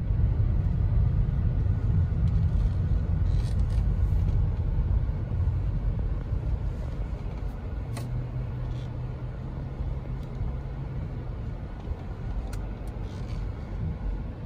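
Car cabin noise while driving: a low rumble of tyres and engine, heaviest in the first few seconds on a rough dirt road, then easing as the car slows. A steady low hum comes in for a few seconds in the middle, and there are a few faint clicks.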